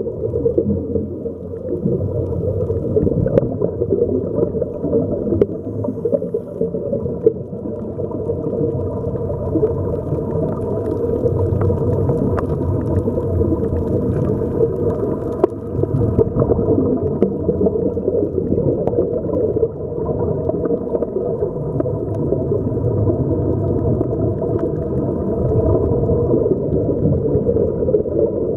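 Steady, muffled underwater rushing picked up by a camera under water, with a few faint short clicks.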